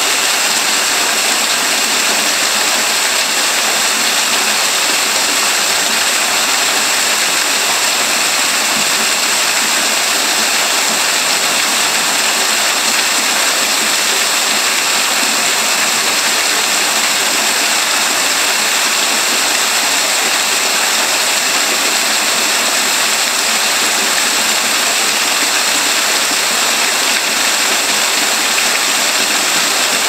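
Greenhouse waterfall heard from right behind its falling curtain: a loud, steady rush and splash of water with little low rumble.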